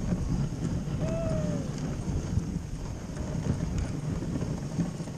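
Wind buffeting the microphone of a moving dog sled as it runs over snow behind the team. About a second in there is one short high call that rises and falls.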